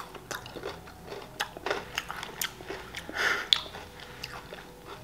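Close-miked chewing of a liqueur-filled chocolate candy: a run of small crunches and mouth clicks, with a short breathy rush about three seconds in.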